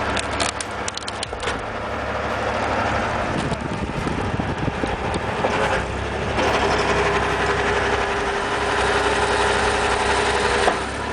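The engine of a firewood processing machine runs steadily, with a quick run of clicks and cracks in the first second or so. A steady higher whine joins in about six seconds in.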